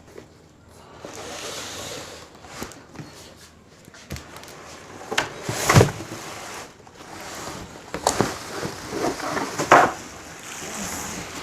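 Cardboard packaging box being turned over and opened by hand: scraping and rustling of cardboard with several thumps, the loudest about six seconds in and again near ten seconds.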